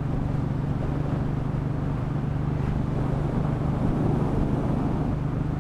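Royal Enfield Bullet 500's single-cylinder engine running at a steady pace while riding, with a constant low hum under wind and road noise.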